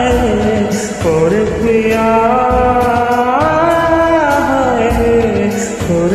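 A man singing long, wavering held notes without words, sliding between pitches, over a Bollywood karaoke backing track with a steady drum beat. Two short sung phrases are followed by one long held phrase of about three seconds.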